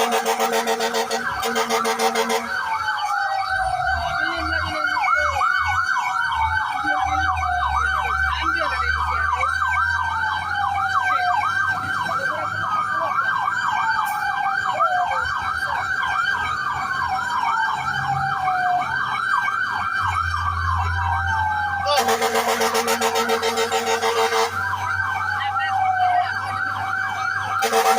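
Emergency sirens of fire trucks responding: one siren on a fast yelp while another wails in slow falling sweeps every few seconds, over engine rumble. A steady loud horn blares for the first two seconds or so, again for a couple of seconds later on, and once more at the very end.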